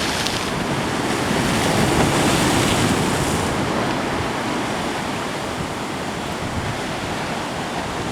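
Heavy ocean surf surging and washing around a lava-rock jetty, swelling to its loudest about two seconds in and then easing to a steady rush.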